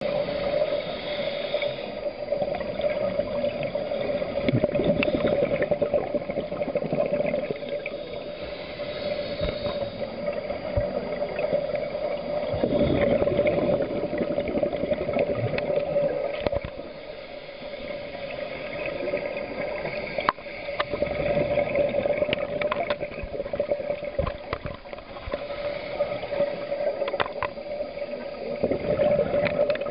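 Scuba divers' regulator breathing heard underwater, with exhaled bubbles gurgling up in waves about every eight seconds, over a steady hum.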